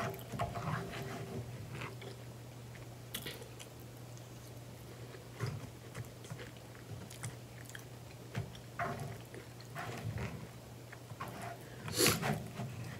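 Close-up eating sounds: chewing and mouth smacks, with a plastic fork clicking and scraping in a plastic bowl of mashed potatoes. One louder sharp smack or click comes near the end, over a steady low hum.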